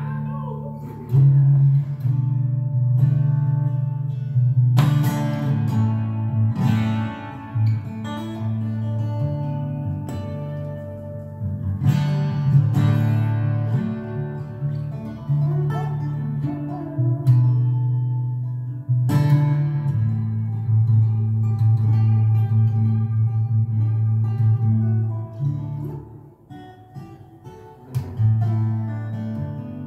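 A solo steel-string acoustic guitar playing an instrumental arrangement, with low bass notes ringing under the melody. Sharp accented strikes land every several seconds.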